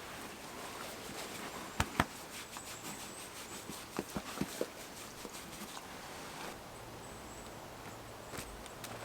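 Quiet outdoor background with scattered light knocks and taps: two sharp knocks about two seconds in and a quick cluster of smaller ones around four seconds.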